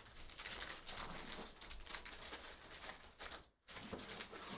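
Plastic card-pack wrapper crinkling and rustling as hands open it, with a brief pause about three and a half seconds in.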